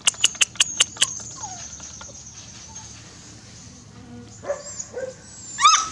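A quick run of about six sharp clicks in the first second, then near the end a labradoodle puppy gives a short, high yelp that rises and falls.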